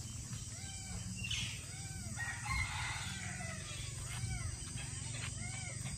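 Bird calls: a run of short notes that each rise and fall in pitch, repeated at a quick, uneven pace, with a louder, harsher call about two seconds in.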